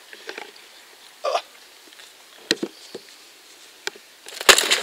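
Handling noise as a big mirror carp is lifted off an unhooking mat: a few short scattered clicks and knocks, then a louder rustle with a thump near the end.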